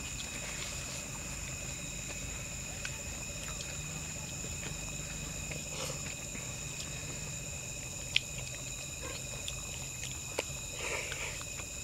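Night insects, such as crickets, singing in a steady high-pitched chorus, with a few sharp clicks in the second half.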